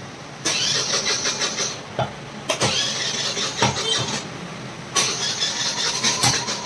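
Heavy cleaver chopping mutton ribs on a wooden butcher's block, a few sharp chops. Under the chops runs a loud, harsh machine noise that starts abruptly about half a second in, breaks off twice and comes back.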